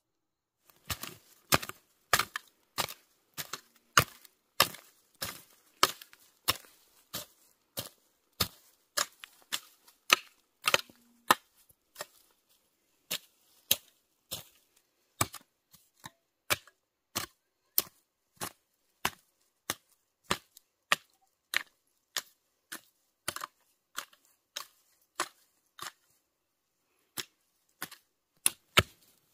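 Long-handled pronged hoe chopping into dry, crumbly soil in a steady rhythm, about one and a half strikes a second, each a sharp thud with a scrape of earth, breaking up the ground for planting. The strikes pause briefly near the end, then resume.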